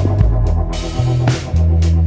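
Electronic background music with a deep bass line that steps between notes under a regular beat.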